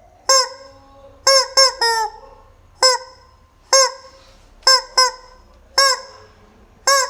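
Squeaky rubber chicken toy squeezed over and over, giving about ten short honking squawks at uneven intervals, some in quick pairs. Each squawk briefly rises and falls in pitch.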